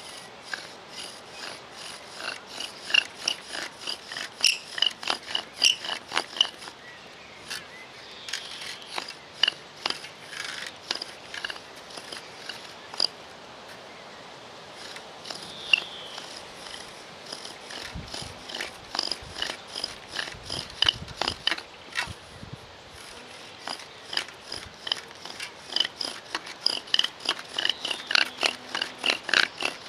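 Friction-fire bow drill in use: a wooden spindle spun back and forth by a bow squeaks and rasps as it grinds into the notch of a wooden hearth board. The strokes come at about two to three a second, in bursts with short pauses.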